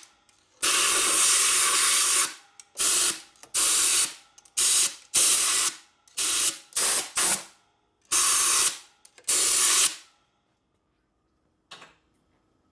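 Compressed-air blow gun blasting dirt out of the Ironhead Sportster engine's parts in a string of short hissing bursts, the first nearly two seconds long and the rest briefer, stopping about ten seconds in.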